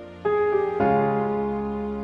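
Slow keyboard music: sustained notes and chords that ring and fade, with new ones struck about a quarter second in and again just under a second in.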